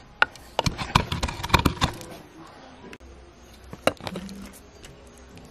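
Wooden pestle pounding a wet spice paste in a wooden mortar: a quick run of sharp knocks for about two seconds. Then it turns quieter, with one more knock about four seconds in.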